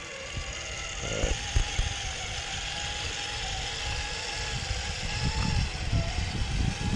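Traxxas TRX-4 RC crawler driving, its electric motor and gearbox giving a steady whine that wavers slightly in pitch, over an uneven low rumble.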